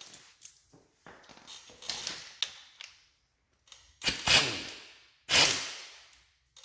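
Metal hand tools clinking and clattering, then two loud sharp metallic clanks about a second apart, each ringing out briefly.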